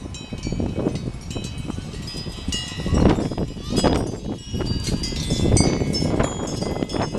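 Many hanging metal bells clinking and ringing together in an overlapping, irregular jangle at many different pitches. Wind buffets the microphone as a heavy rumble that swells a few times.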